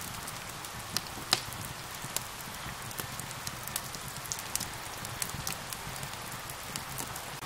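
Steady rain hiss with the irregular pops and snaps of a crackling wood fire, one pop louder than the rest about a second in.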